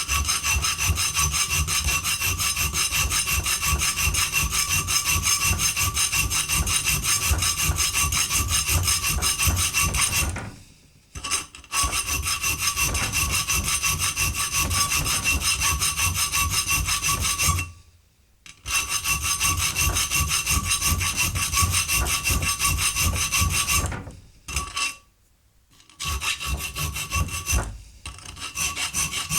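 A hand file rasping in quick back-and-forth strokes, widening a hole. It pauses briefly a few times and starts again.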